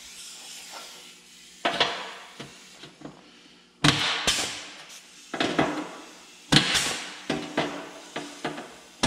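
Pneumatic punch tool punching plug-weld holes in the lip of a sheet-steel wheel-arch repair panel: about five sharp clacks a second or more apart, each followed by a fading ring.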